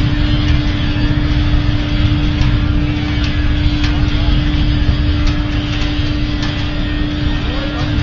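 5000 kW biomass sawdust burner firing at full flame: a steady, heavy rumbling roar of the flame jet with a steady low hum running through it.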